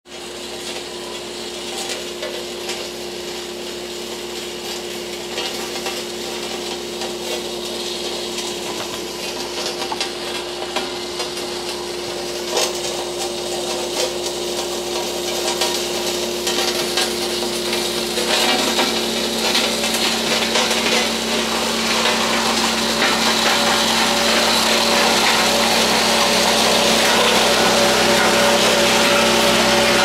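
Large tandem double-drum road roller's diesel engine running at a steady pitch as the machine rolls closer, growing steadily louder, over a gritty hiss of gravel under its steel drums as it compacts the runway's gravel base.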